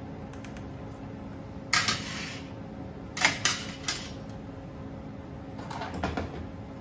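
Metal spoon and kitchenware being handled on a steel counter: sharp clinks and clatters about two seconds in, a quick run of them between three and four seconds, and softer knocks near the end, over a steady background hum.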